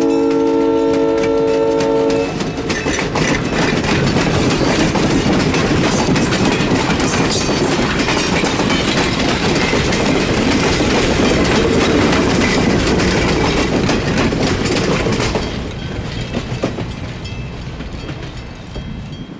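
Diesel locomotive air horn holding a multi-note chord, cutting off about two seconds in. Then passenger cars roll past with wheels clicking over rail joints, and the rolling noise fades away over the last few seconds as the train moves off.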